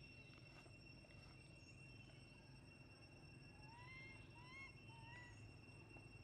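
Baby macaque giving three short, faint rising-and-falling coos about four seconds in, the crying whimper of an infant monkey. A steady high-pitched insect drone runs underneath.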